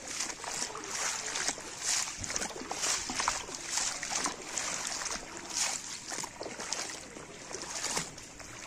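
Someone wading through flood water, feet splashing and sloshing in a steady rhythm of about two steps a second.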